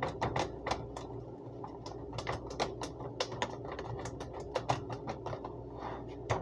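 Plastic food container being handled: irregular clicks and taps of the plastic and its lid, a few a second, over a steady low hum.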